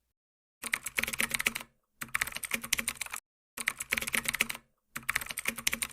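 Keyboard typing: four bursts of rapid key clicks, each about a second long, with short pauses between them.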